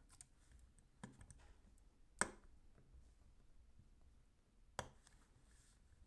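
Faint handling clicks from a 2.5-inch hard drive and its thin metal frame being worked free by hand: a few sharp clicks, the loudest about two seconds in and another near five seconds, with small ticks between.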